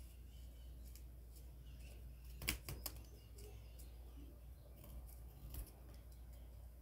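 Small scissors snipping cardboard: a few short, sharp clicks, the loudest pair about two and a half seconds in and another about five and a half seconds in.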